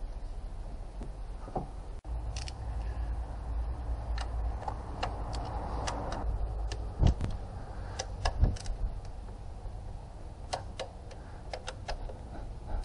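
Scattered metallic clicks and clinks of hand tools and engine parts being handled, with two louder knocks about seven and eight and a half seconds in, over a low steady hum.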